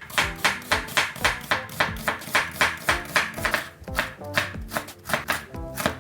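Kitchen knife chopping quickly and evenly on a cutting board, about five cuts a second, over background music.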